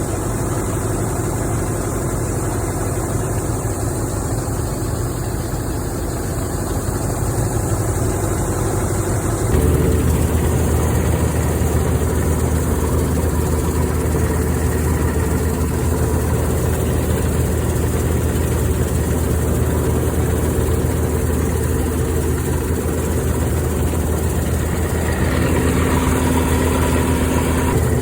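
Engine of an old Clayson M122 combine harvester running steadily. About ten seconds in, the sound changes abruptly to a heavier, lower drone.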